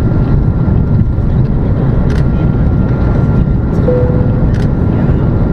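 Cabin noise of an Airbus A330-200 jet under power, a steady rush of engine and airflow noise heavy in the low end, heard from a window seat. A faint short tone sounds about four seconds in.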